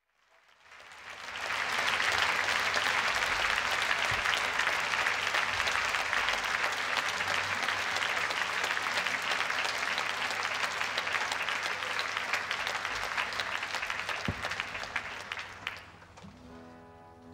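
A large concert audience applauding, swelling up over the first two seconds, holding steady, then dying away about sixteen seconds in. Held instrument notes begin as the applause fades near the end.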